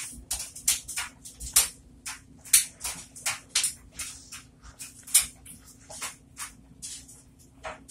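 Soapy sponge squeezed and squished in a bowl of thick Mr Clean lemon and bubble bath suds: an uneven run of wet squelches and fizzing crackles, about two to three a second.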